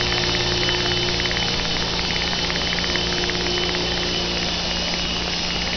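Motor and rotor of a prototype model rotorcraft running steadily, a constant high whine over a low hum and buzz.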